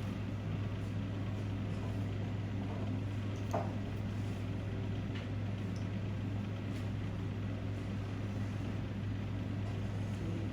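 A steady low mechanical hum with a faint noisy haze over it, and a faint click about three and a half seconds in.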